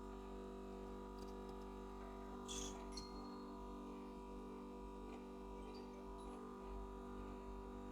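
Faint, steady hum of an LCD screen separator heat plate's vacuum pump running, holding the phone screen down by suction, with a brief hiss and a small click about two and a half to three seconds in.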